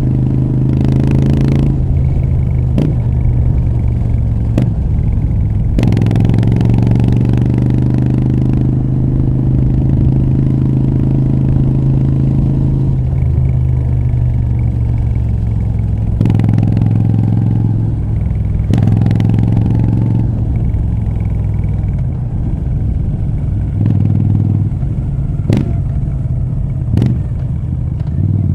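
Moto Guzzi V7 III Rough's air-cooled transverse V-twin through short Mistral exhaust pipes, running under way. Its pitch steps up and down several times with throttle and gear changes, with a few short rushes of noise and sharp clicks along the way.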